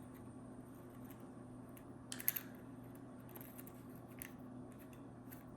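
Small clicks and taps from handling a Zippo lighter and its insert, the sharpest a short cluster about two seconds in, over a faint steady hum.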